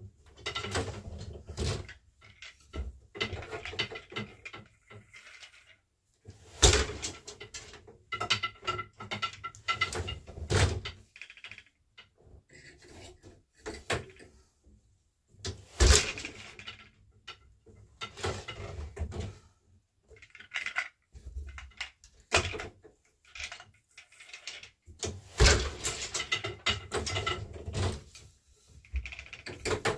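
Floor loom weaving: wooden boat shuttles clattering and sliding across the warp while the beater is pulled to knock each pick of cotton weft into place. A few loud knocks stand out, about nine seconds apart, among lighter clatters.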